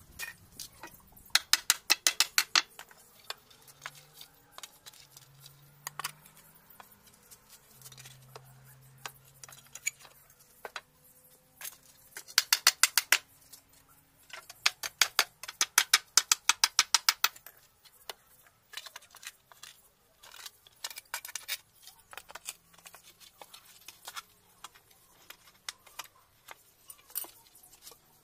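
Hammer tapping quickly on nails in pallet boards, in three runs of about eight blows a second, with scattered single metal clicks of nails and tools in between.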